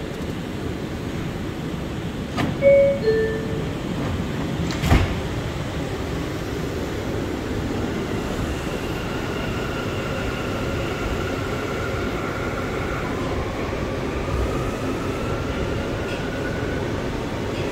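R179 subway car's two-note descending door chime about three seconds in, then a sharp thump of the doors closing near five seconds. The train then pulls away over a steady rumble, with the whine of its AC traction motors rising in pitch as it accelerates.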